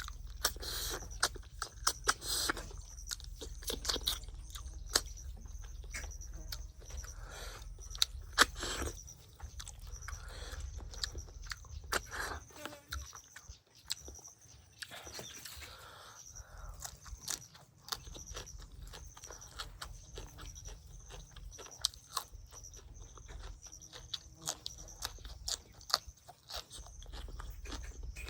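A person eating close to the microphone: chewing and crunching, with many irregular sharp clicks and bites.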